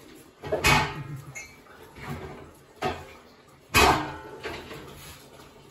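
Household clatter: three sharp knocks with a short ringing tail, about a second in, near three seconds, and loudest near four seconds.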